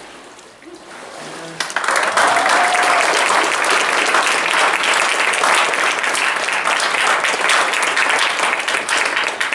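Congregation applauding: the clapping swells in about a second and a half in, holds steady and loud, then thins out near the end.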